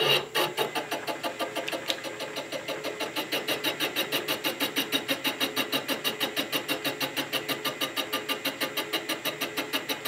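Knee mill starting up, then its spinning boring head and boring bar cutting metal on a cement-mixer yoke journal. The cut is a steady, rhythmic chatter of about six beats a second.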